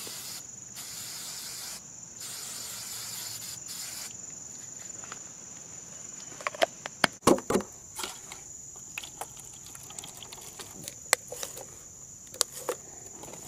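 Aerosol spray can hissing in several bursts during the first four seconds or so, over a steady high drone of insects. From about six seconds in come several sharp knocks, clicks and rustles of a plaster box and plastic bag being handled.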